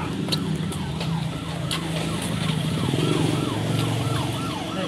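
Siren sounding in quick repeated falling sweeps, about three a second, over a low steady hum.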